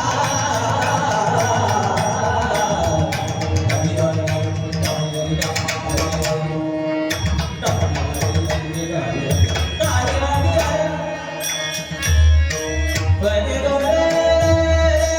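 Marathi abhang devotional music: a mridang drum plays under sustained melodic tones, with a stream of crisp high beats over the top. About twelve seconds in, a run of heavy low drum strokes comes in.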